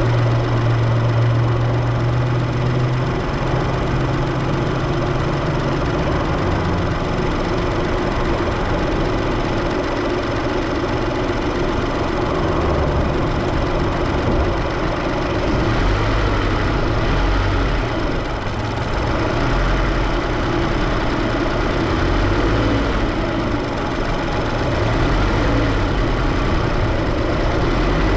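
Supercharged Scion FR-S's flat-four engine running steadily near idle, heard from the engine bay. Its low hum shifts partway through.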